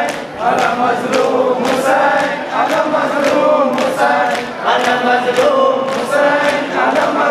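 A group of men chanting a mourning lament (noha) together, with rhythmic chest-beating (sinezani) striking about twice a second.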